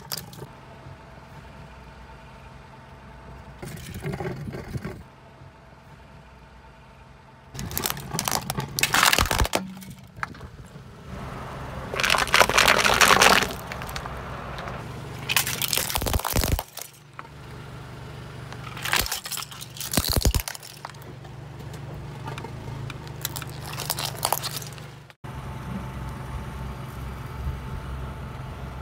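A car tyre rolling over small objects and crushing them: about five separate bouts of loud cracking and crunching, with the low hum of the slow-moving car between them.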